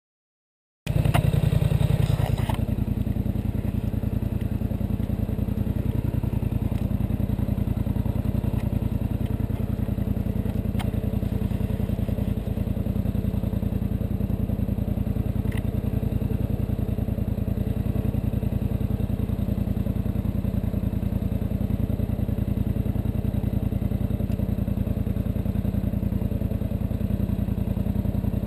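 ATV engine running steadily at idle, heard from the handlebars; it comes in about a second in, a little higher for a moment, then settles.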